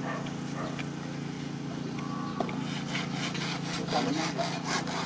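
Hacksaw cutting through PVC pipe: rasping strokes at about three a second, starting around the middle, over a steady low hum.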